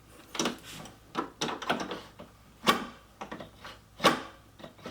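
TV stand feet being handled and pushed into the slots on a TV's underside: irregular clicks and rattles with two sharp knocks, the second about four seconds in, as a foot refuses to lock in place.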